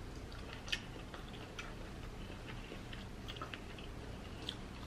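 Soft, wet mouth clicks and smacks of someone eating king crab meat close to the microphone, scattered irregularly, with one slightly louder click under a second in.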